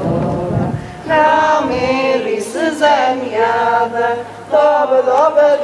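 A group of voices singing together, holding long drawn-out notes in phrases with short breaks between them.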